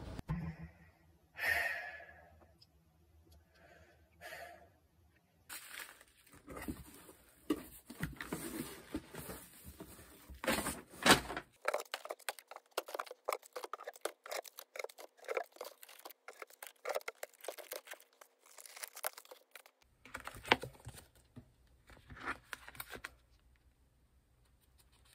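Food packaging being handled and unpacked: irregular crinkling and tearing of plastic and cardboard, with light knocks as packs are picked up and moved. It starts a few seconds in and stops shortly before the end.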